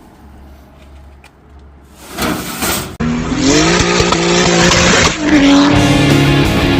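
A car's engine running at high revs with tyres squealing, cutting in suddenly about three seconds in after a short rush of noise over a low hum.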